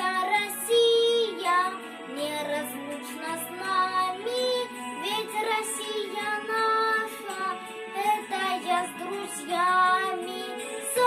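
Music of a children's song: a high melody line in a child's singing range, without clear words, over instrumental accompaniment.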